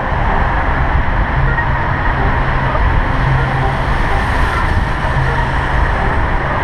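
Wind rushing and buffeting over the microphone of a bike-mounted action camera at riding speed, with short, held low notes of music from a portable boombox underneath.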